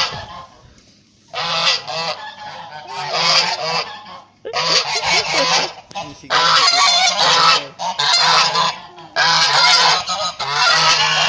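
A flock of domestic geese honking in loud bouts of overlapping calls, one after another, starting about a second in.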